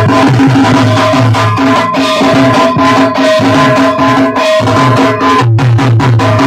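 Loud drum-heavy music played through a large DJ sound system, with a rhythmic pulsing bass beat, drum hits and a steady held tone over it. The bass drops out briefly about four and a half seconds in and comes back about a second later.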